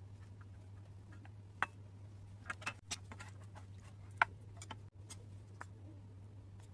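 A few sharp, scattered clicks and taps, two of them louder, over a steady low hum.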